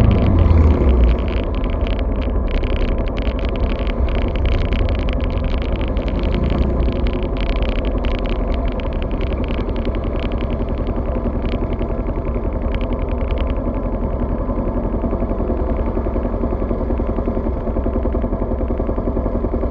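A vehicle engine, heard through an action camera's waterproof housing, winding down in pitch at the start and then running steadily at a low, even idle, with scattered clicks and rattles through the first half.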